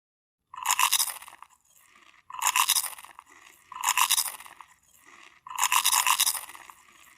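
A crunching sound effect in four bursts of about a second each, roughly a second and a half apart, starting about half a second in.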